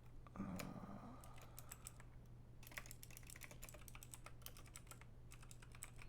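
Typing on a computer keyboard: quick runs of soft key clicks, in two bursts, over a faint steady low hum.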